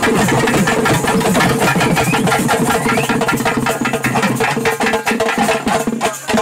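Tamil folk-dance drumming: fast, dense strokes on a barrel drum and a stick-struck round drum, over a steady held tone. The drumming thins briefly near the end.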